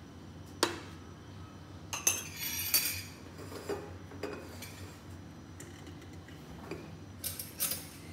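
Steel spoon clinking a few times against a glass mixing bowl, with sharp clicks about half a second, two and three seconds in, then a hand rubbing and scraping flour in the glass bowl.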